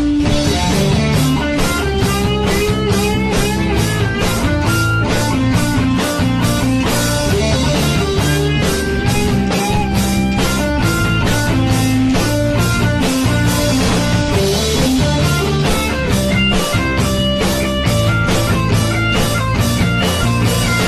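Instrumental section of a rock song with no singing: guitar playing a melodic line over bass and a drum kit keeping a steady beat of about two hits a second.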